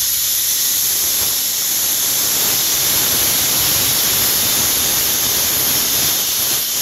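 Loud, steady hiss of steam blowing out low at the front of a 5 ft gauge Finnish Railways Pacific steam locomotive, from its open cylinder drain cocks. There are no exhaust beats.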